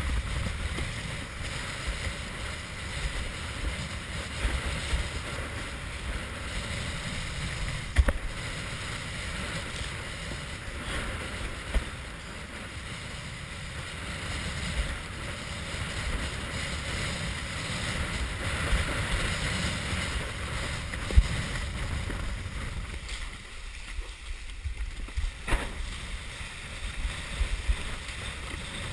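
Wind buffeting a head-mounted GoPro's microphone over water rushing and splashing against a windsurf board sailing through chop, with an occasional sharp slap. The wind rumble drops briefly about three-quarters of the way through.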